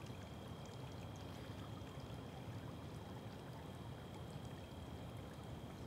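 Fountain water splashing steadily as an even wash of noise, with a faint steady high whine.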